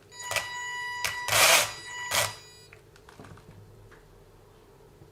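WLtoys 144001 RC car driven briefly: a steady high electric whine with four harsh grinding bursts over about two and a half seconds, then it stops. The grinding remains after the car was rebuilt, and its cause in the drivetrain is not yet found.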